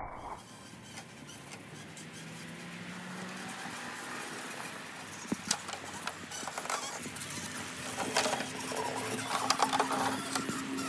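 Scale RC rock crawler's electric motor and gearbox whining faintly at low speed, with a run of crackles and clicks as the tyres and chassis work over dry leaves and rocks. One sharp knock comes about five and a half seconds in, and the crackling gets busier near the end.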